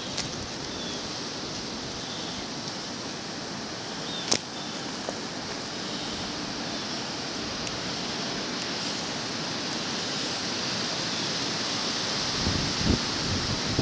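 Steady hiss of wind during a snowstorm, slowly growing louder, with a sharp click about four seconds in and a few low thumps near the end.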